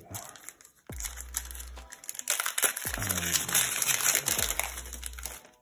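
Foil wrapper of an Upper Deck Series 1 hockey card pack crinkling as it is opened by hand, busiest in the second half, over background music.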